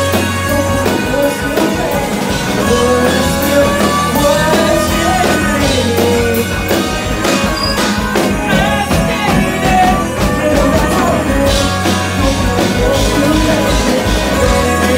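Live rock band playing loud and steady: drum kit, electric guitar and keyboard.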